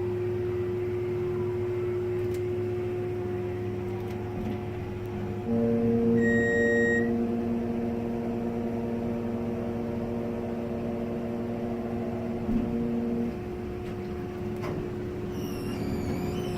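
Mall elevator ride: a steady hum, joined about five seconds in by a louder droning hum that stops about thirteen seconds in, with a short high beep near the six-second mark.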